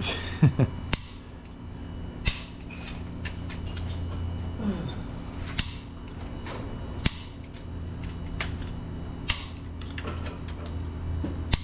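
Hand torque wrench clicking as bolts in an engine block are tightened: a few sharp clicks close together about half a second in, then single clicks every second or two, over a steady low hum.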